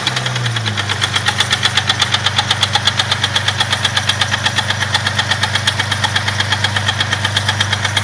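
Jeep 4.0 straight-six idling cold with a rapid, even knock, about ten a second, over the engine's hum, which settles slightly lower in pitch in the first second.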